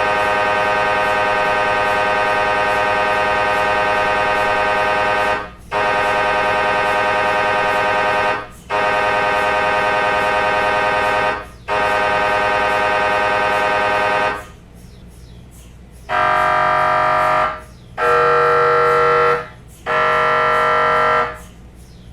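MRI scanner buzzing in a loud steady tone from its switching gradient coils, cut by brief gaps about every three seconds. After a quieter pause, three shorter buzzes of about a second and a half each follow at a different pitch, as the scanner moves to a new imaging sequence.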